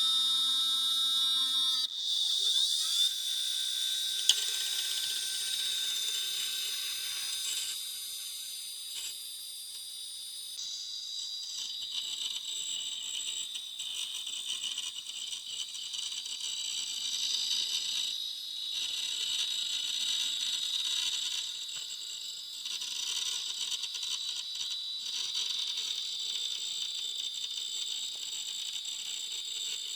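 Twenty-year-old hard drive with a sticking spindle that will not start without a nudge: the drive spins up with a rising whine about two seconds in, then runs with a steady high-pitched whine and scattered ticking.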